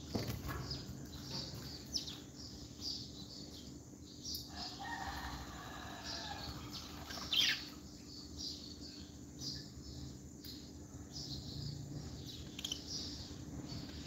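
Caged lovebirds chirping in short high notes, with a flutter of wings as a blue-masked lovebird takes off from its perch at the start; one louder sharp call about seven seconds in.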